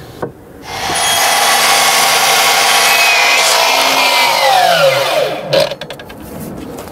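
Milwaukee Fuel sliding mitre saw starting up and cutting through a Thermowood cladding board, then released so the blade winds down with a falling whine about four to five seconds in. A few light knocks follow as the board is moved on the saw.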